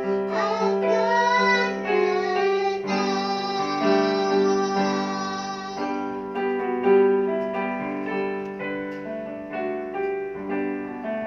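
A singer's voice over piano accompaniment for the first three seconds or so, then the piano playing on alone in slow held notes and chords.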